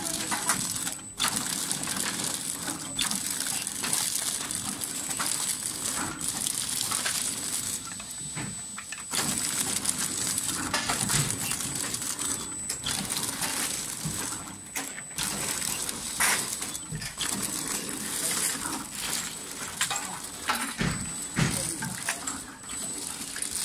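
Automatic flow-wrap packaging machine for hardware parts running, with frequent clinking and clicking of parts and mechanism over a steady machine noise and a thin, steady high tone.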